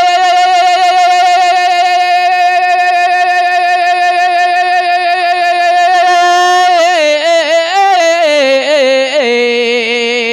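A man singing an Urdu manqabat solo into a microphone. He holds one long high note for about six and a half seconds, then sings ornamental turns that step down and settle on a lower held note near the end.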